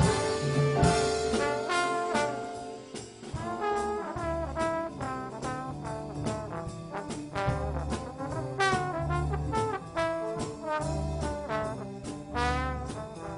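A student band playing a holiday tune: brass instruments carry the melody over a drum kit keeping a steady beat.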